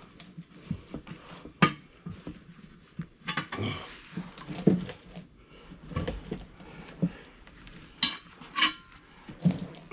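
Steel tire irons and a manual tire-changer bar clinking and knocking against a steel wheel rim in irregular strikes, as the bead of a new tractor tire is levered onto the rim.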